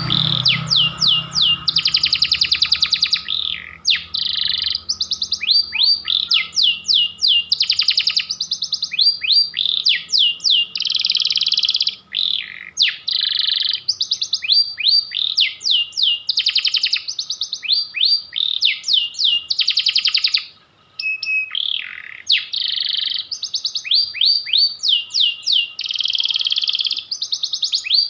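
Canary singing a long, almost unbroken song of fast trills and rapid downward-sweeping notes, pausing only briefly twice.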